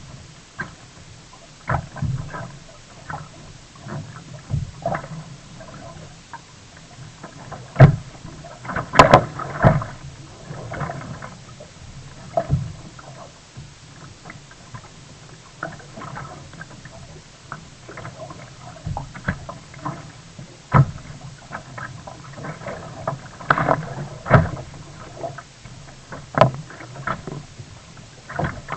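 Sea kayak being paddled: irregular paddle splashes and knocks on the water and hull. A few strikes stand out louder, about a third of the way in and again later on.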